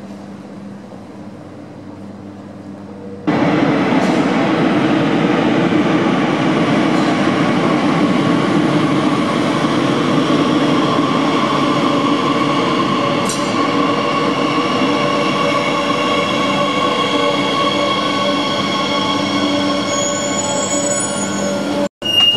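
Metro train running into an underground station: a few seconds of low station hum, then a sudden loud, steady rumble of the wheels with several high whining and squealing tones as the train comes along the platform. Near the end, after a brief break, a short high beep.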